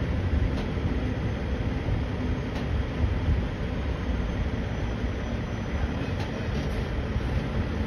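Heavy truck engine idling: a steady low rumble.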